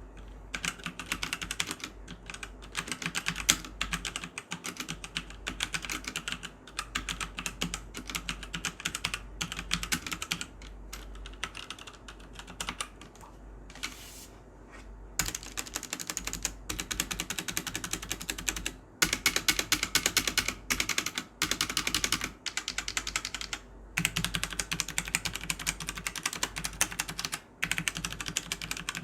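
Typing on a Fantech Maxcore MK852 full-size mechanical keyboard with Outemu Brown tactile switches: fast runs of key clicks broken by short pauses. The switches are tactile and not as noisy as Blue switches.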